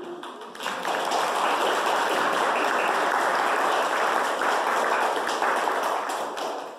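A room of people applauding: steady clapping that swells up about a second in and dies away near the end.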